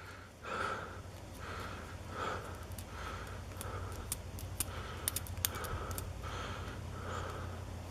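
Faint scraping from a small metal pick working inside a pin-tumbler lock core, repeating about every 0.7 s, with a few light metallic ticks about five seconds in, while it tries to dig out a stuck wafer. A low hum runs underneath.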